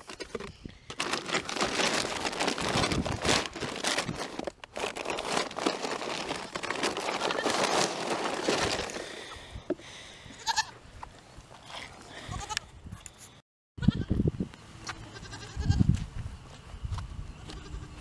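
Plastic feed sacks rustling and crinkling as a hand rummages through them for about the first nine seconds, then goats bleating a few times over a quieter background.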